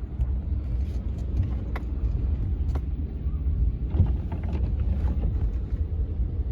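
A vehicle's engine running steadily with a low rumble as it drives along, with scattered rattles and knocks from riding over rough ground and a louder knock about four seconds in.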